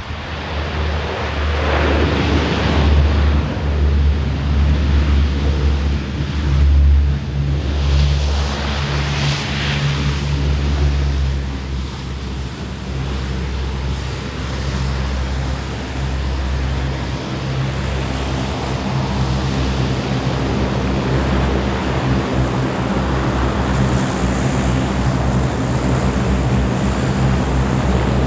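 Lockheed C-130 Hercules's four turboprop engines and propellers running as the aircraft taxis: a steady low propeller drone under a rushing noise that swells several times.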